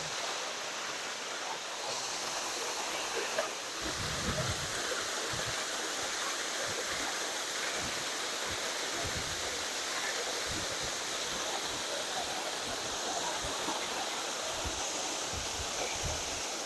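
Oboadaka waterfall rushing steadily, a continuous roar of falling water, with irregular low buffeting rumbles from about four seconds in.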